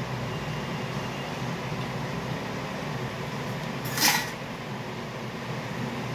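Steady hum of a fan, with one short, sharp hiss about four seconds in.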